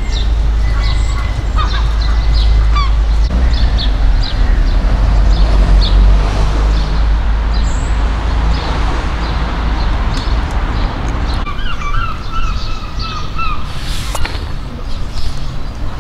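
Geese honking in a short run of notes late on, with small birds chirping throughout. Underneath is a steady low rumble, and a rushing noise swells and fades in the middle.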